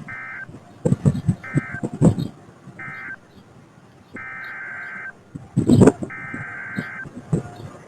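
NOAA Weather Radio SAME digital data bursts, buzzy screeching tones: three short bursts, the end-of-message code closing the tornado warning, then two longer bursts about a second apart, the header of the next alert. Three loud thumps come about one, two and six seconds in.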